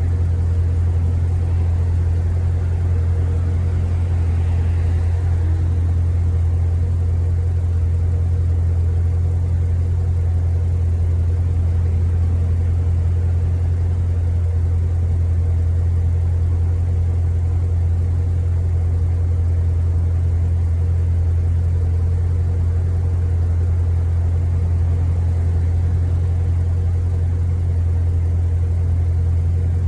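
Steady low mechanical hum that holds one pitch and level throughout.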